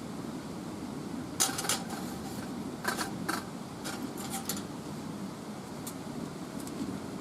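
A quick run of light metallic clinks and taps of cookware, some with a short ring, over a steady low hum.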